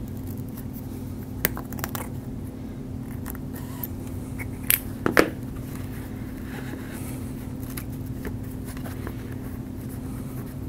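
A few small sharp clicks, the loudest pair about five seconds in, from a metal needle holder and suture being handled during hand suturing. A steady low hum runs underneath.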